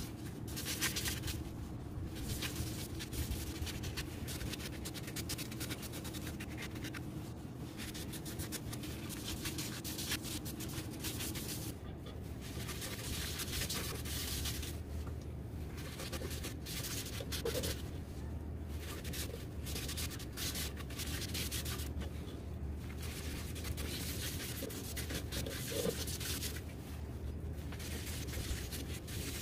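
Sandpaper rubbing over a Chinese juniper wood vase mounted on a wood lathe: a continuous scratchy rasp that swells and eases in uneven strokes, over a steady low hum.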